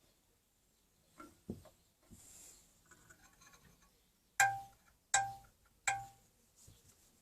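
A few soft knocks, then three sharp metallic clinks about three-quarters of a second apart, each ringing briefly like struck metal.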